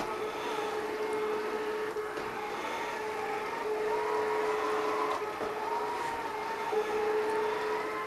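Home Hero robot vacuum running over carpet: a steady motor hum with a higher whine that wavers up and down in pitch.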